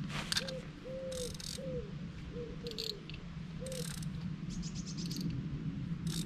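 Common wood pigeon cooing its five-note phrase, coo-COO-coo, coo-coo, then starting the phrase again, over a low steady hum. Scattered clicks and rustles from a fishing rod and reel being handled, with a quick run of ticks about two-thirds of the way through.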